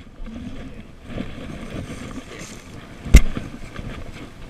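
Low, rumbling outdoor noise on the microphone, with one sharp, loud knock about three seconds in.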